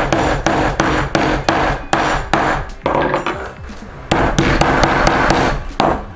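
Hammer blows setting a rivet through leather on a round steel rivet-setting anvil: a quick run of sharp metal strikes, about three a second.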